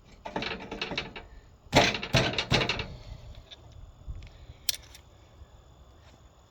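Rapid runs of sharp metal taps and clatter from tools on a high-striker's stuck metal part. There are two clusters, the second and louder about two seconds in, then a single sharp click near the five-second mark.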